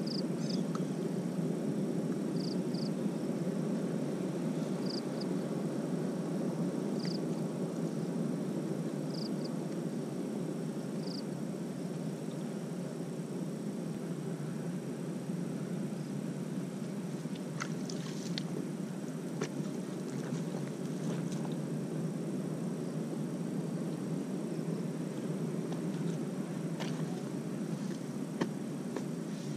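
A bird calling a short, high double note about every two seconds for the first ten seconds or so, over a steady low rumbling noise; a few light clicks and rustles come later.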